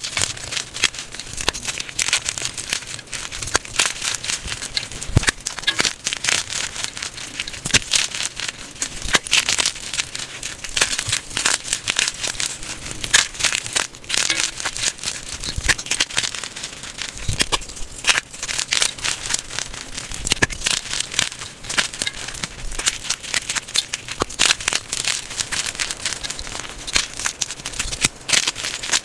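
Blocks of gym chalk crushed and crumbled in the hands: dense, uneven crunching and crackling as the chalk breaks apart and grinds into powder.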